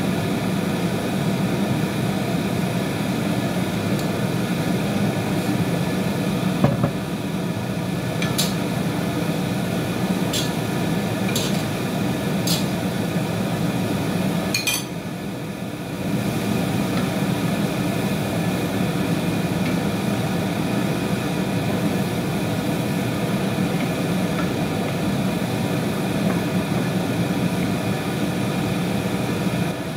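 Steady whir of a kitchen range-hood fan over a wok of stir-frying vegetables, with a few sharp clinks of utensils against the pan around the middle.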